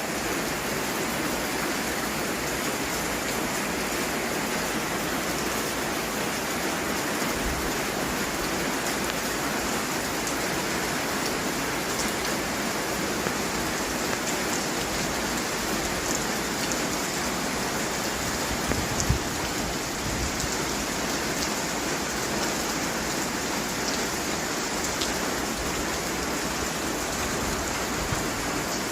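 Steady rain falling and pattering on surfaces, with scattered individual drops ticking; one brief louder knock about two-thirds of the way through.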